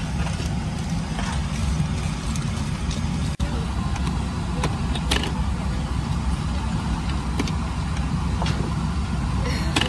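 Steady low rumble of a Boeing 767-400ER airliner cabin, with a few faint small clicks and one brief dropout about a third of the way in.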